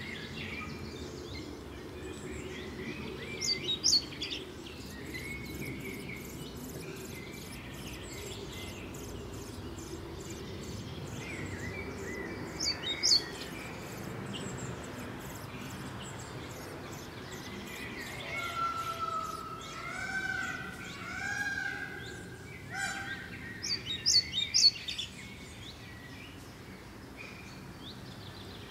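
European pied flycatcher calling: short, sharp high notes in small clusters of two to four, about every ten seconds, with other birds singing faintly in the background.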